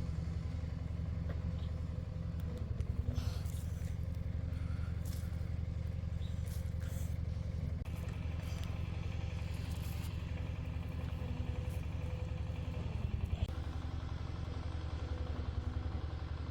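A small engine idling steadily, with a few light knocks and scrapes over it.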